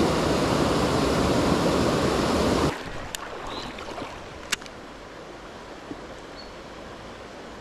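Small stream waterfall rushing loudly, cut off abruptly about two and a half seconds in and replaced by the much quieter ripple of shallow flowing water, with two sharp clicks.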